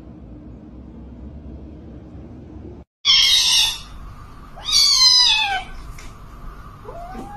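Cat yowling: two loud, harsh cries about a second apart, the second a falling wail, then a short, quieter meow near the end.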